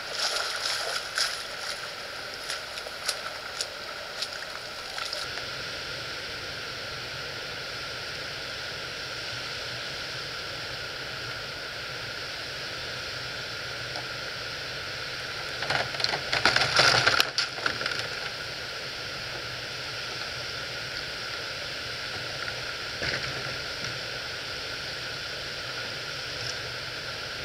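Steady rush of river water spilling over a low concrete dam. Scattered knocks and scrapes of a kayak hull against concrete come through the first few seconds, with a louder burst of scraping and knocking a little past halfway as the kayak is lowered down the wall.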